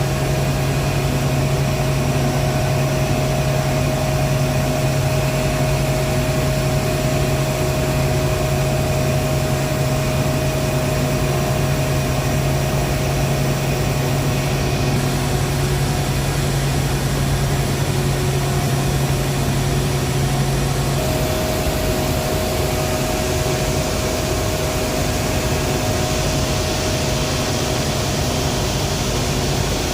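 Heavy industrial machinery running steadily: a constant loud hum with a steady higher tone over a noisy rush. About two-thirds of the way in the deep hum drops away and the hiss grows brighter.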